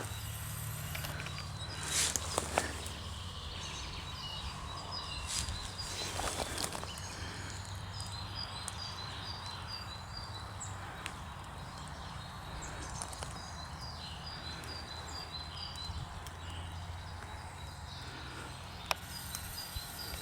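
Outdoor ambience: a steady low hum, a few brief rustles and knocks early on, and runs of short, high, evenly spaced chirps.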